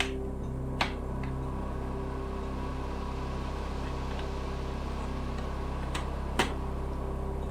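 Background music with low held notes, and a few sharp clicks over it: one near the start and two close together near the end.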